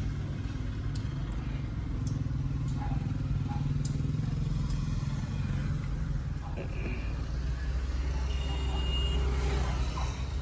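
Low, steady rumble of motor-vehicle engines, with a few faint clicks.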